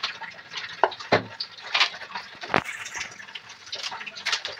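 Irregular clicks and knocks of hard plastic parts and tubing being handled, as a water purifier unit is fitted and its RO tubing routed.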